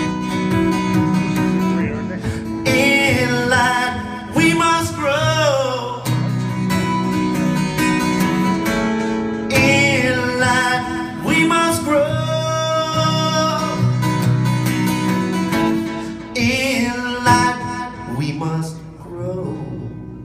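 Live band playing a slow, country-tinged song led by acoustic guitar, with a wavering sung melody. The music thins and winds down over the last few seconds as the song nears its end.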